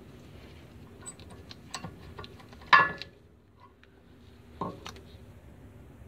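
Steel brake pads and their clips on a 2000 Acura EL's front brake clicking and clinking as the old pads are worked out of the caliper bracket. A sharp metallic clank with a brief ring comes a little before halfway through, and a softer clank follows about two seconds later.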